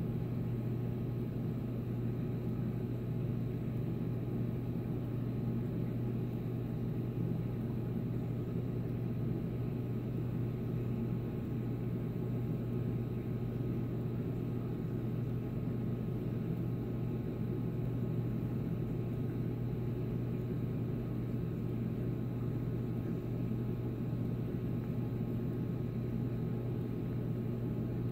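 Reef aquarium pumps running with a steady low hum and a faint even hiss.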